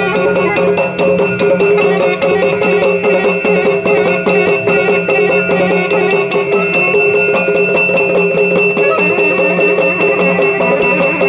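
Traditional temple ritual music: fast, continuous drumming on the udike, an hourglass drum, over several steady held tones.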